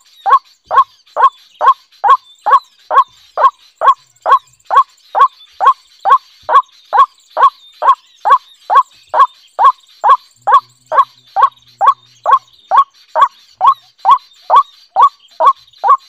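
White-breasted waterhen calling: a short falling 'kwak' note repeated very steadily, a little over two times a second, without a break.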